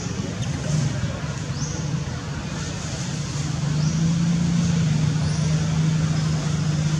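Steady outdoor background noise with a low droning hum that grows louder and steadier about halfway through. Short high chirps repeat roughly once a second.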